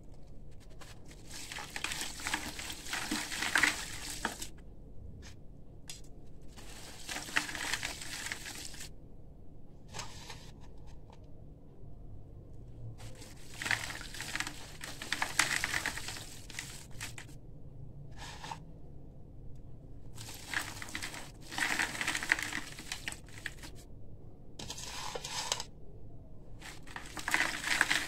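A soaked chunk of concrete being crushed and crumbled by hand in a bucket of water: gritty crunching and grinding in about six bouts of a few seconds each, with short pauses between.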